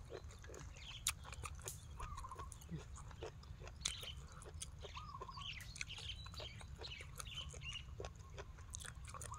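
Faint eating sounds: chewing with scattered small crunchy clicks. Behind them, small birds chirp and a chicken gives two short clucks, over a low steady rumble.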